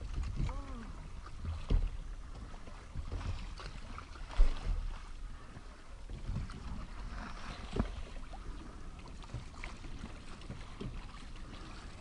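Ocean rowing boat under oars: blades dipping and pulling through the water with splashing, and a few sharp knocks, each about every three seconds. Wind rumbles on the microphone underneath.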